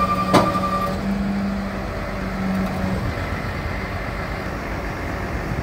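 Bucket truck's hydraulic system whining steadily while the outrigger levers are worked, with one sharp clunk a fraction of a second in. The whine stops about three seconds in, leaving the truck engine running.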